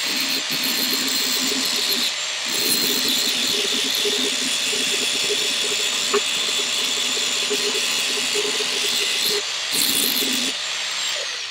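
Angle grinder cleaning the edge of a 3/8-inch steel test plate clamped in a vise: a steady, loud grinding of abrasive on steel, with short dips as the load changes. The grinder then spins down with a falling whine near the end.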